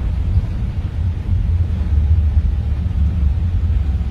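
Steady low rumble of an Airbus A321neo rolling out along the runway after touchdown, heard from inside the cockpit.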